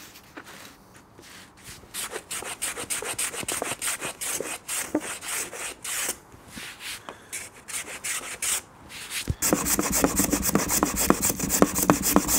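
Hand plane shaving the edge of a plywood station mold in quick repeated strokes, fairing it down to a pencil line. The strokes come faster and louder about nine and a half seconds in.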